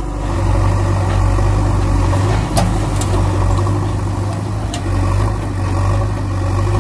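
Heavy-machine engine idling steadily, a low, even hum that starts abruptly, with a few short, sharp clicks in the middle.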